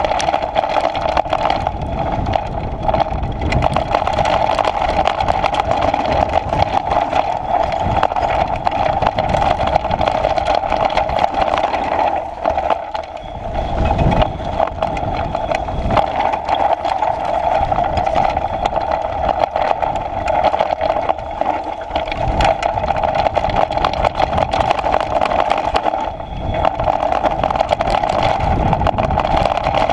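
Off-road bike riding fast down a rocky dirt trail: a steady rush of wind noise and tyre rumble, with constant rattling and clatter as the knobby tyre runs over loose stones.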